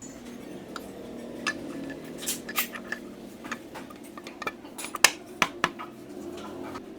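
Metal tools and engine parts clinking and clicking against each other as a motorcycle engine's clutch side is worked on by hand: a string of irregular sharp metallic clicks, the loudest a few about five seconds in.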